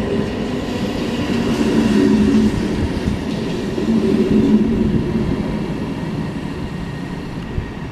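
Aeroexpress ЭШ2 (Stadler KISS) double-deck electric multiple unit running past the platform, a steady rumble with a low electric hum that swells about two seconds in and slowly fades toward the end.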